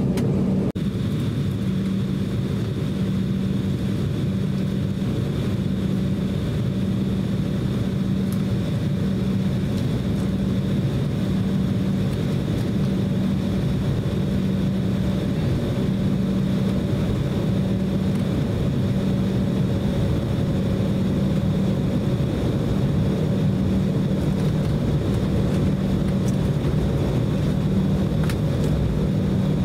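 Inside the cabin of an Embraer E190 taxiing, its GE CF34 turbofan engines at idle: a steady hum with a wavering low drone and a thin high whine.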